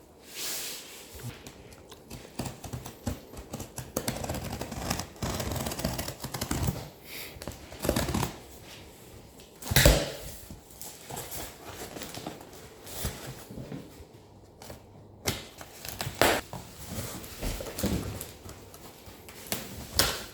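Cardboard box and packaging of a voltage converter being opened and handled: irregular rustling, scraping and small clicks, with a sharp knock about ten seconds in.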